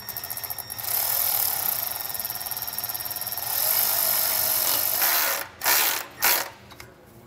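Cordless electric ratchet tightening worm-drive hose clamps around an exhaust pipe. Rapid clicking at first, then a steady whir for about four seconds, then two short bursts near the end.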